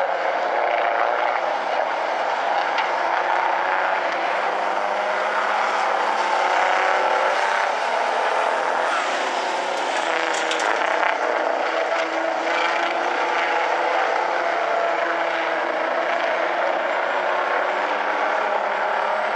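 Several racing big-rig semi trucks running hard, their engines overlapping in a steady din whose notes rise and fall as the trucks pass.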